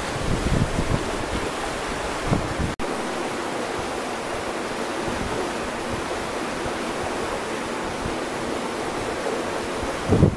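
Rushing river water, a steady broad hiss, with wind buffeting the microphone in the first few seconds. The sound drops out for an instant about three seconds in, then the rushing water carries on evenly.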